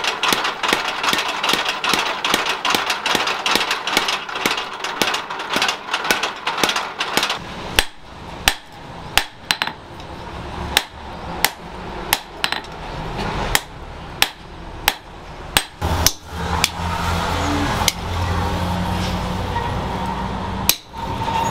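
A mechanical power hammer pounds red-hot bearing steel on an anvil in a fast, continuous run of strikes. About eight seconds in, this gives way to a hand hammer striking the hot blade, about one and a half blows a second. For the last few seconds a steady hum runs with only an odd tap.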